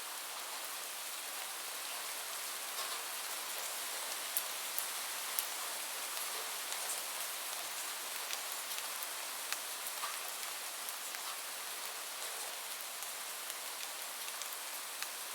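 Light rain falling steadily, a soft even hiss with scattered individual drops ticking sharply on a surface.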